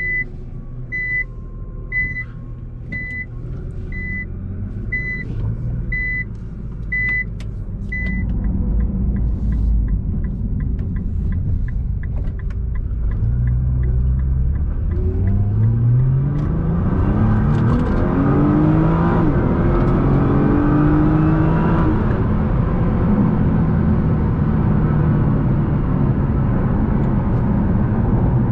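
A chime beeps about once a second for the first eight seconds, followed by a faster ticking. Then the Nissan GT-R's twin-turbo V6 pulls away, rising in pitch as it accelerates, and settles into a steady drone with road and tyre noise from the new Michelin Pilot Sport 4S tyres.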